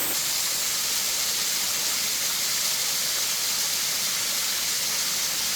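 Waterfall rushing over rock ledges: a steady, even hiss of falling water.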